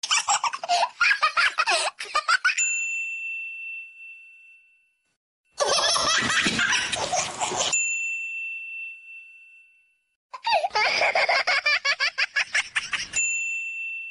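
Babies and toddlers laughing and giggling in three bursts, each ending in a single bell-like ding that rings on and fades over a couple of seconds.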